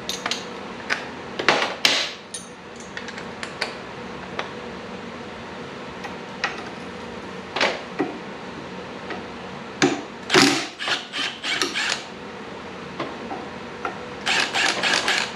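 Cordless power tool spinning off the bolts of a motorcycle's rear brake caliper bracket in several short bursts, the longest near the end, with metallic clinks of tools and parts between.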